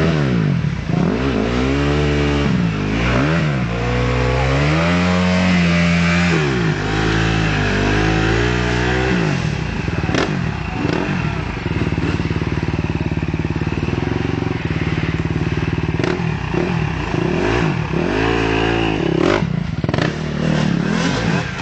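Enduro dirt bike's engine being revved up and down repeatedly as it is worked through deep muddy ruts, then running lower and steadier with a few sharp clicks, before another short burst of revs near the end.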